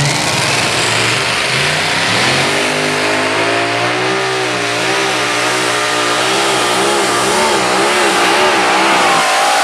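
Modified pulling tractor's supercharged engines revving up at the start of the pull, then running hard under load, the pitch wavering quickly up and down as it drags the sled.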